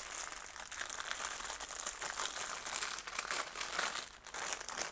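Clear plastic zip-top bag of diamond-painting drill packets crinkling and rustling as it is handled, continuous and dense, easing briefly about four seconds in.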